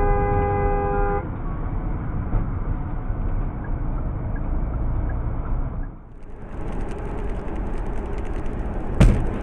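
Car horn blaring for about a second over the steady tyre and engine noise of a car driving on a highway, heard from inside the car. After a cut, the road noise goes on and a single sharp, loud bang comes near the end.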